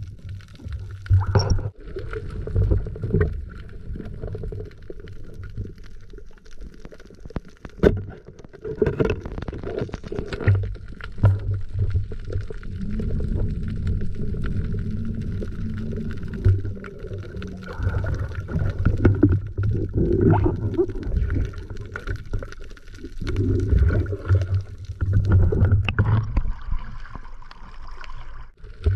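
Muffled underwater sound through a waterproof camera housing: a low rumbling wash of water movement, with scattered sharp knocks and clicks from handling the spear and a speared fish.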